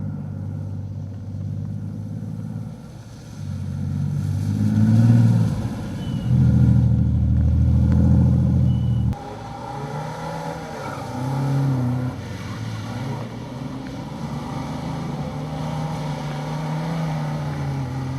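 Classic rally car engines idling and being revved in short shots cut together: a rev about five seconds in, a loud steady run that cuts off abruptly about nine seconds in, then an engine running with a few brief blips of the throttle.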